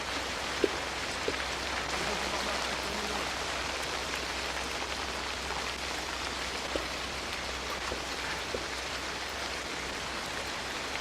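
Steady rain falling, an even hiss with a few faint clicks scattered through it.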